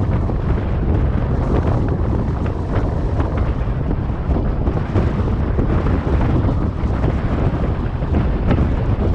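Wind blowing across the microphone on a beach: a loud, steady low rumble with a fainter hiss above it.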